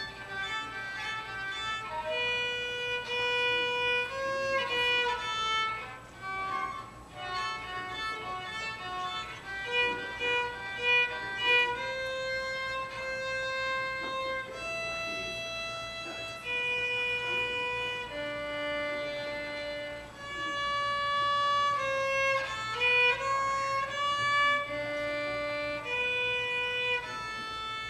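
A violin playing a melody, a single line of bowed notes, some held for a second or two and a few sliding between pitches late on.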